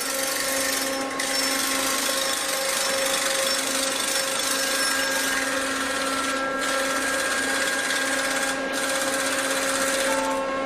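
Steady mechanical drone: several held tones over a hiss, briefly dipping three times.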